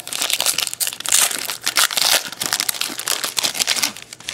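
Foil wrapper of a Prestige football trading-card pack crinkling and tearing as it is ripped open, a dense run of sharp crackles that dies down near the end.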